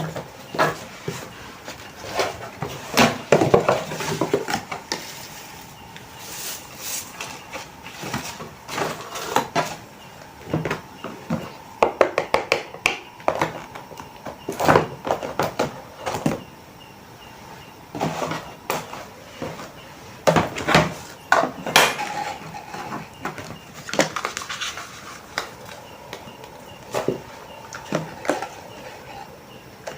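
Close-up handling of paper and plastic packaging: a string of crinkles, rustles and light taps, coming in clusters of different loudness.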